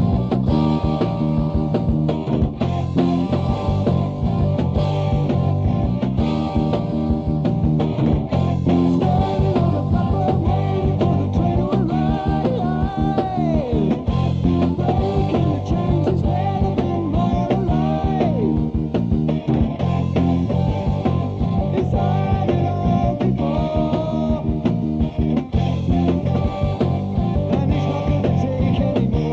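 Early-1980s heavy metal band playing a song from a cassette demo: electric guitars, bass and drums, with a bending melodic line over the top through the middle of the passage. The sound is dull, with no top end.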